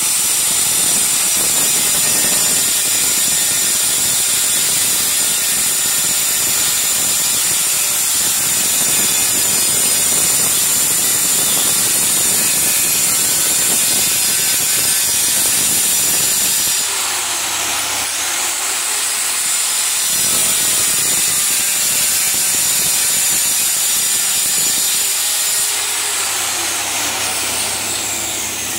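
Handheld electric tile cutter running at full speed and cutting lengthwise through a tile strip along a marked line: a loud, steady high whine over the grinding of the blade in the tile. The cutting noise eases twice in the second half as the blade's load lightens, then picks up again.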